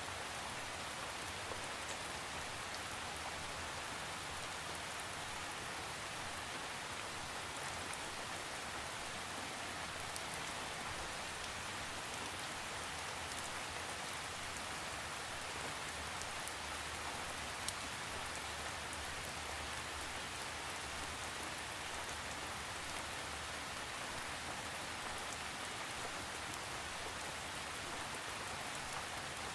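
Steady rain falling, an even hiss with scattered drops pattering, no thunder.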